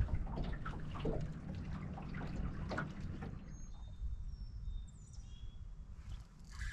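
Lake water lapping and splashing against the aluminium boat hull under a low wind rumble. Mostly in the first three seconds, with a few short, high bird chirps about halfway through.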